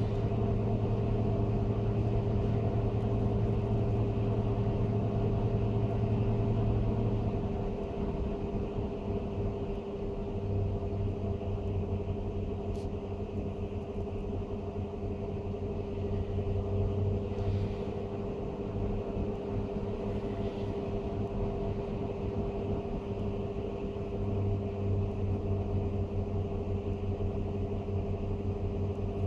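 A blower door fan runs steadily, depressurizing the house. About seven seconds in it drops to a lower, slightly uneven level as the automatic test slows the fan toward the next, lower target pressure.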